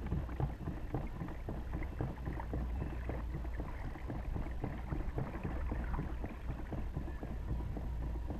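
Water lapping and trickling against the hull of a moving kayak, a dense patter of small splashes over a steady low rumble.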